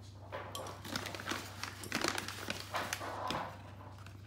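A metal measuring cup scooping flour from a paper bag and being levelled off with a knife: a string of short, irregular scrapes, clinks and paper rustles.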